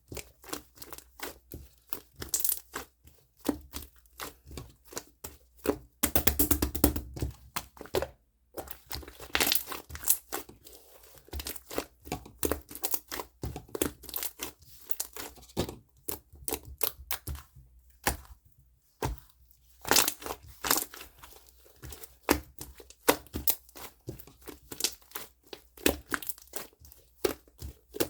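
Slime being squished, stretched and folded by hand, with a steady run of sticky clicks and pops.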